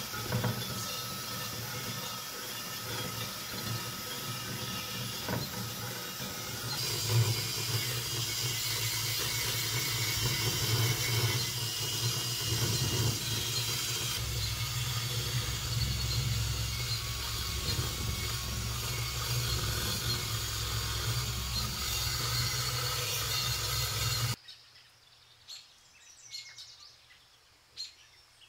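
Cordless drill spinning a wire wheel brush against rusty cast iron, scouring rust off an old waffle iron plate: a steady motor hum under a harsh scratching of the wire bristles. It cuts off near the end, leaving only a few faint taps.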